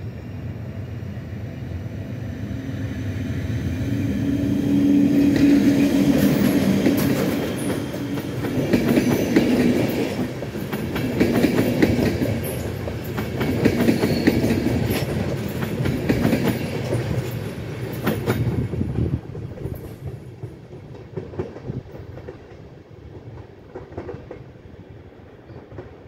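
ÖBB class 1144 electric locomotive and four double-deck Wiesel coaches passing at speed. A steady hum from the locomotive's cooling blowers, the noise behind its nickname 'Alpenstaubsauger' (Alpine vacuum cleaner), builds to a peak about six seconds in. Then the wheels clatter rhythmically over the rail joints as the coaches go by, and the sound fades away after about nineteen seconds.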